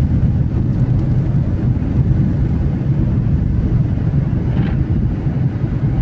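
Cabin noise of a Boeing 737 airliner climbing just after takeoff: the jet engines and rushing air make a steady, loud low rumble.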